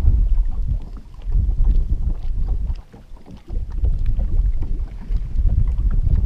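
Wind buffeting the microphone in gusts, a low rumble that eases off briefly about three seconds in.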